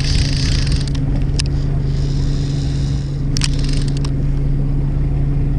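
Fishing boat's engine running with a steady low hum. A hiss comes in at the start and again about two seconds in, with a few sharp clicks.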